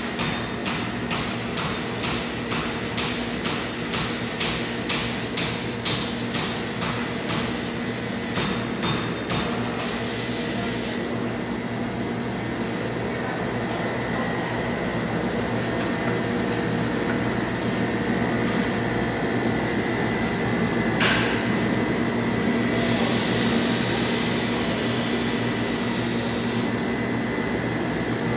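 A hammer striking steel at an anvil, evenly about one and a half blows a second, for the first ten seconds. A belt grinder then runs steadily, with a louder hiss of steel ground against the belt for a few seconds later on.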